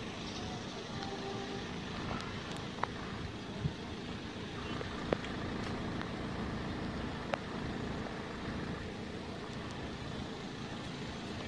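Steady low background of road traffic with cars idling, broken by a few faint sharp clicks.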